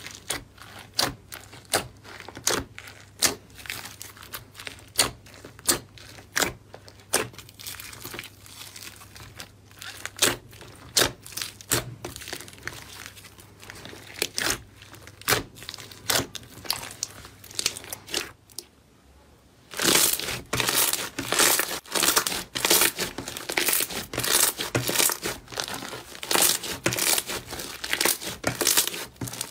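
Thick slime being squeezed, stretched and kneaded by hand, giving sticky pops and crackles: separate sharp pops about once or twice a second, then, after a brief pause past the middle, a denser run of crackling.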